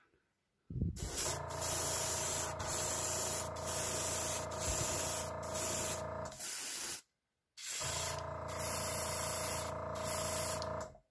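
Gravity-feed airbrush spraying pearlized white paint, a steady hiss of air broken by brief trigger releases, over the steady hum of an air compressor. It runs in two stretches, about six seconds and then about three, with a short pause between.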